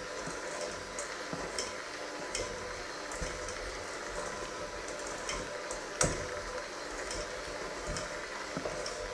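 Electric hand mixer running steadily, its beaters churning a crumbly dough in a metal bowl with scattered clicks as they knock the bowl's side, one sharper knock about six seconds in.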